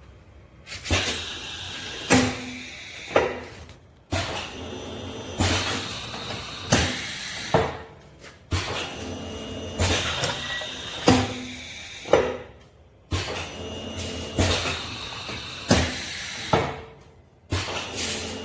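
Pipe-bending machine working through repeated bending cycles: about five bursts of machine noise, each a few seconds long with sharp metallic clunks, starting roughly every four and a half seconds with brief pauses between.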